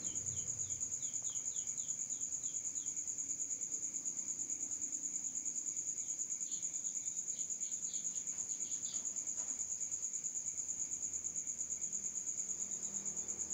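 A steady, high-pitched, cricket-like insect trill that pulses evenly. Fainter short chirps come over it in the first two or three seconds and again around the middle.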